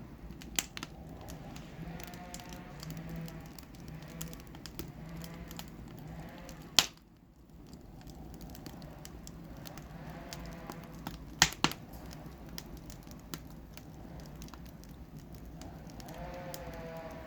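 Wood fire crackling in a fireplace, with scattered sharp pops; the loudest come about seven and eleven seconds in. Animals bleat faintly in the background several times, most clearly near the end.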